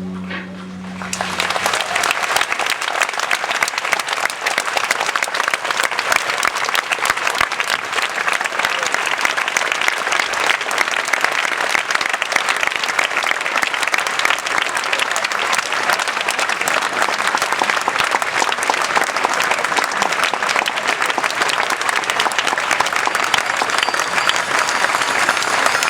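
Audience applauding with sustained clapping that starts about a second in, as the song's last held note dies away.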